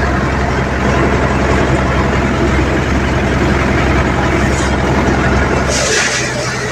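Mahindra 575 DI tractor's diesel engine running steadily while driving a paddy thresher, with the thresher's drum whirring as rice bundles are fed in. A short rush of hissing threshing noise comes about six seconds in.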